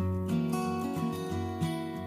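Background music with acoustic guitar strumming.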